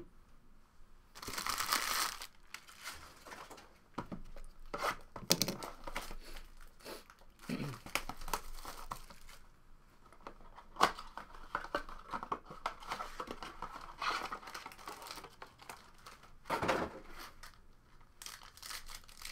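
A cardboard trading-card blaster box being torn open and its wrapped card packs handled, crinkling and tearing in repeated bursts with a sharp click partway through.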